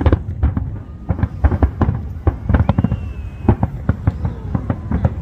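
Fireworks show: a rapid, continuous barrage of shell bursts and cracks, many in quick succession, heaviest in the low booms. A faint thin whistle sounds briefly about halfway through.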